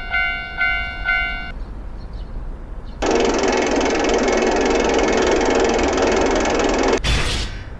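Japanese level-crossing warning bell sounding its "kan kan" ring a few times, then a train passing with a loud steady rush for about four seconds that cuts off suddenly.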